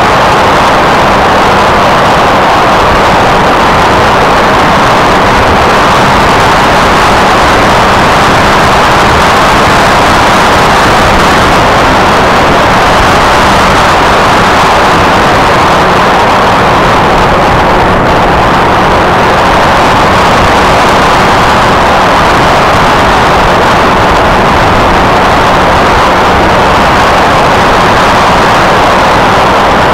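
Loud, steady rush of wind mixed with the running electric pusher motor and propeller, picked up by the camera riding on a ParkZone F-27C Stryker foam flying wing in flight.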